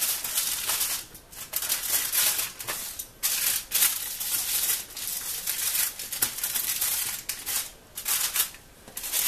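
Aluminium foil crinkling and crackling as it is folded over and its edges crimped shut to seal a cooking packet, in runs broken by brief pauses and a short lull near the end.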